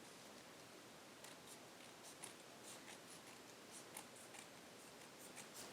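Scissors snipping along a strip of construction paper, a string of faint short cuts through the card.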